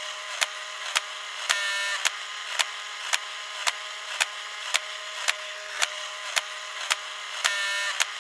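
35mm film camera mechanism whirring steadily, with a sharp mechanical click repeating evenly about twice a second.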